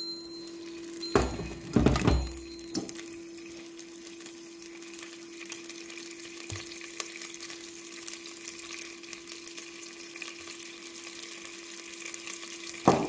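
Bosch AutoCook Pro's inner pot knocking into place a couple of times about a second or two in, then olive oil heating in the pot on the sear program with a faint sizzle of small crackles over a steady hum. Another knock near the end.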